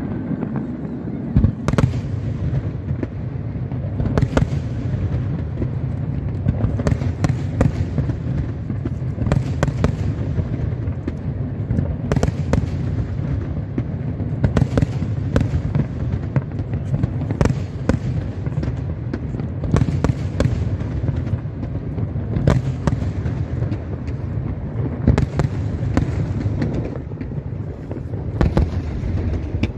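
Aerial firework shells bursting in rapid succession, a dense continuous volley of explosions with sharper bangs standing out every second or two.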